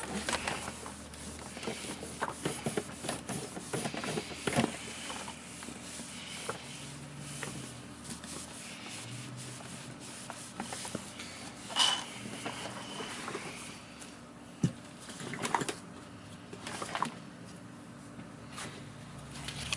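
Handling and cleaning noises from vacuum cleaner parts: scattered clicks, knocks and rubbing of plastic pieces, with a few louder knocks past the middle.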